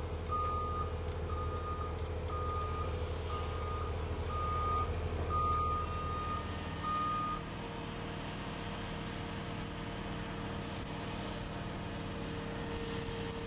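Backup alarm on a piece of heavy construction equipment, beeping about once a second over the low rumble of its engine. Beeps and rumble stop about seven seconds in, leaving a steady hum.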